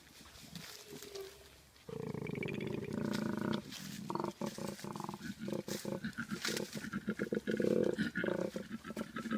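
Big cat growling: a low, rumbling growl begins about two seconds in and turns into a fast run of pulsing growls.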